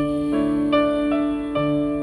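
Slow, tender piano music, single notes struck about every 0.4 seconds over a held low note.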